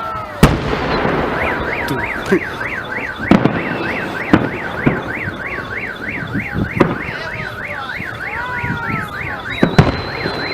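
Fireworks salute shells banging at irregular intervals, the loudest about half a second in, while a car alarm warbles rapidly up and down, about three times a second, set off by the blasts. A steady high tone joins near the end.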